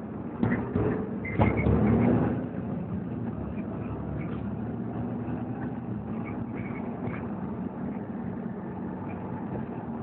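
Inside a Volvo B7TL double-decker bus on the move: the engine and drivetrain drone steadily with a low hum, and the body knocks and rattles a few times in the first two seconds.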